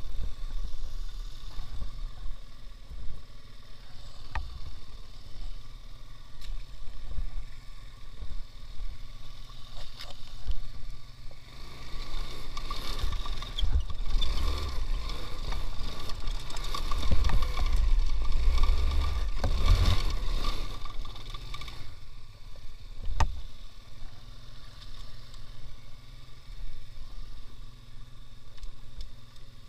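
Engine of a homemade two-wheel-drive ATV running as it crawls through swampy ground. It works harder and louder for about ten seconds in the middle, and there are a few sharp knocks and clatters from the machine along the way.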